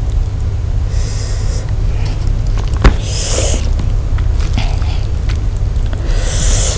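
Eating-by-hand sounds: bare fingers tearing spiced fried chicken and working into rice, with three short noisy breaths and a sharp click about three seconds in. A steady low hum runs underneath.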